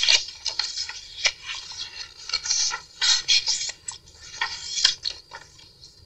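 Paper pages of a handmade junk journal being turned by hand: rustling and scraping in a run of short, crisp bursts, quieter near the end.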